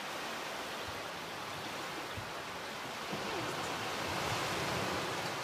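Steady rush of shallow surf washing over the sand at the shoreline, swelling slightly about three seconds in.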